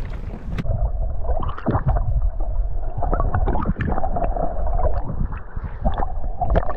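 Muffled underwater sound from a camera held just below the lake surface: water gurgling and sloshing around it, with scattered knocks and a steady hum underneath. The high end drops out about half a second in as the camera goes under.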